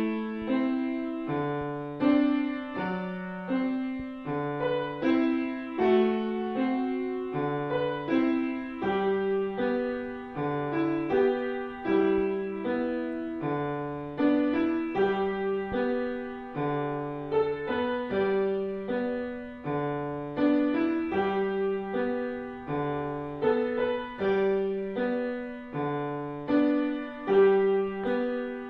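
Piano music: a steady run of struck notes that ring and fade, with a melody over a repeating low bass line.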